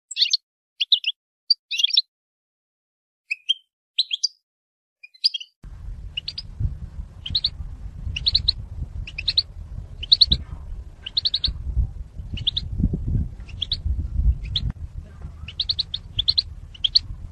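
A female European goldfinch's short chattering call notes, the calls used to stir male goldfinches into song. A few scattered calls come first, then from about six seconds in they repeat about twice a second over a low rumble.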